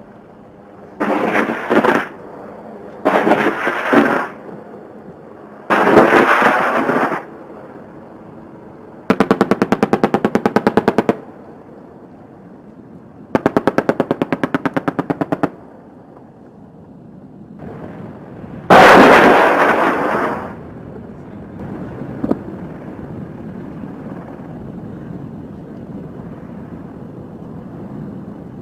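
AH-64 Apache's 30 mm chain gun firing six bursts of rapid, evenly spaced shots, each burst lasting about one and a half to two seconds, the last one, near twenty seconds in, the loudest. A steady background noise carries on between the bursts.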